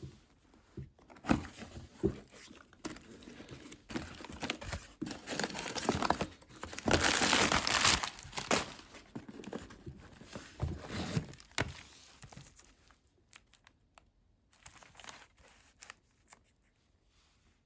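Packaging being torn open and crinkled by hand, with irregular rustles and crackles and a longer, louder rip about seven seconds in; the handling grows sparse and quieter in the last few seconds.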